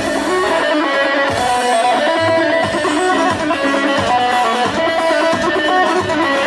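Loud amplified music with a plucked string instrument playing an ornamented melody over a steady backing.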